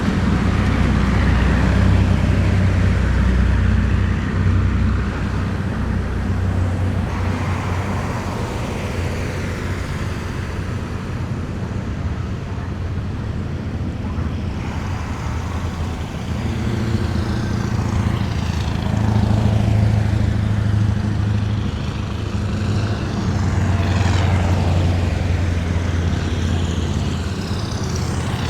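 A column of heavy military vehicles driving past, their engines running with a deep drone. In the second half a whoosh sweeps up and down as vehicles go by one after another.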